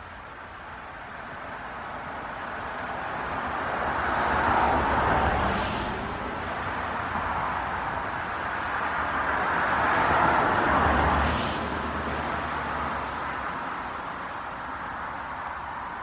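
Two vehicles passing by, each a rushing noise that swells and then fades, the first loudest about five seconds in and the second about ten to eleven seconds in.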